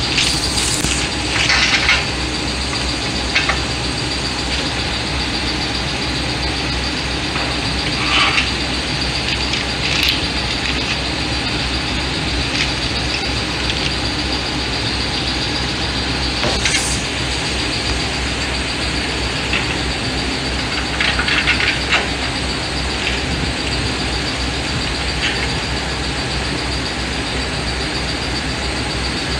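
Steady machine hum and hiss with a constant high whine, broken by a few short metallic clinks of suspension parts being handled, with a small cluster of them about two-thirds of the way in.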